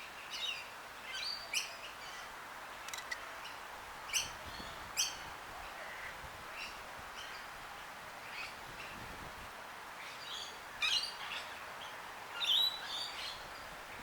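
Small birds chirping, a scatter of short high calls every second or two with a louder cluster near the end, over a steady faint hiss of outdoor background noise.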